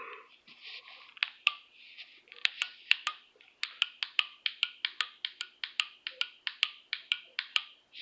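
A series of small, sharp clicks from a small handheld object worked close to the microphone. They are scattered at first, then run steadily at about three a second from halfway in, over a faint hiss.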